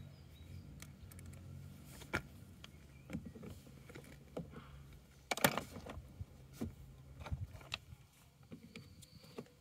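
Scattered light clicks and knocks of small fitting hardware (screws, clips and the plastic mud flap) being handled, with a louder clatter about five and a half seconds in.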